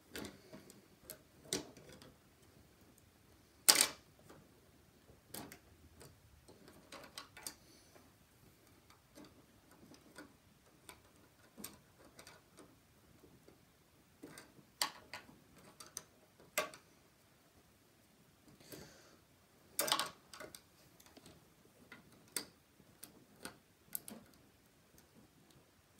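Irregular small clicks and light knocks of plastic Lego pieces being handled and pressed together, with a louder knock about four seconds in and another about twenty seconds in.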